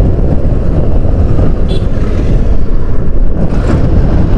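Wind buffeting a microphone on a moving motorcycle: a loud, steady low rumble with no clear engine note.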